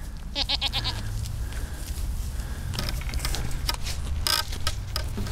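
Crinkling and rustling of a bread bag in short spells, with scattered clicks, over a steady low rumble. A brief pulsing, wavering sound comes about half a second in.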